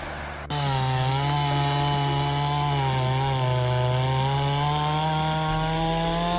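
Chainsaw running at a steady, slightly wavering pitch as it cuts through wood. It starts abruptly about half a second in, after a brief rush of wind-like noise.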